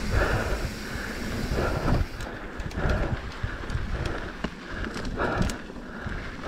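Wind rumbling on the microphone of a mountain biker's camera, with soft repeated puffs of heavy breathing from the rider.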